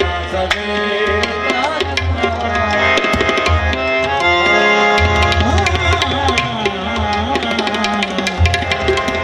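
Qawwali instrumental passage: harmoniums playing a sustained melody over fast, continuous tabla strokes.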